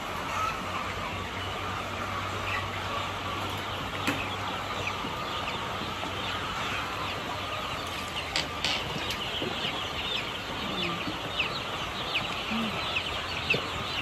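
Many young broiler chicks peeping: a dense chorus of short, high cheeps that grows louder in the second half. The chicks are huddled together because they are cold.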